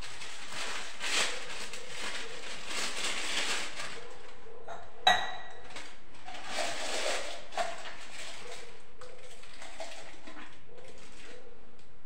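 Filling a plastic piping bag with white cream in a steel tumbler. Rustling and scraping for the first few seconds, then a sharp metal clink that rings briefly about five seconds in, and a few lighter knocks after it.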